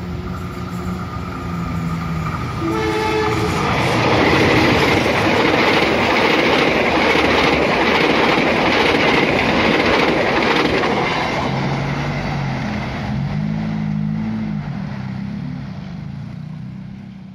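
Diesel-hauled passenger train sounding its horn as it approaches, then passing close by with a loud rumble and rhythmic wheel clatter over the rail joints, fading as the coaches go by. Near the end, small motorcycle engines rev up and down.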